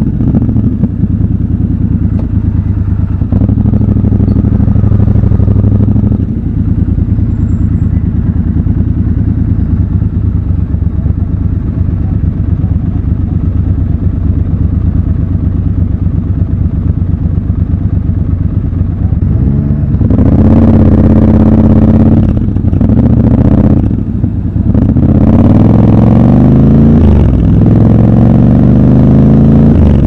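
Triumph Scrambler 1200 XC's 1200 cc parallel-twin engine idling steadily at a standstill, then from about two-thirds through accelerating away, its pitch rising in several sweeps with brief drops between them as it shifts up through the gears.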